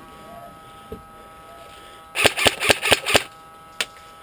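Airsoft gun firing a quick string of about five shots, roughly four to five a second, then one more shot about half a second later.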